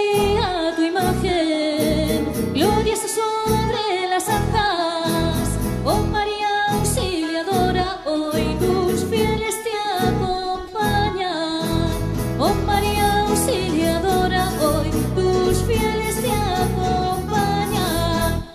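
Music from a song: a melodic lead line that slides between notes over a steady beat, with no sung words.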